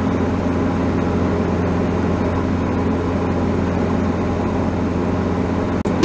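Diamond DA-40's single piston engine and propeller droning steadily, heard inside the cockpit, with a brief dropout near the end.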